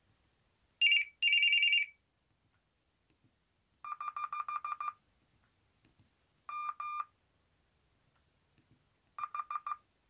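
Built-in electronic ringtones of a SANYO A5527SA flip phone playing through its small speaker in short snatches. A fast high two-tone warble comes about a second in. Then come three groups of rapid, evenly spaced beeps at a lower pitch: a long run near the middle, a brief pair a little later, and a short run near the end.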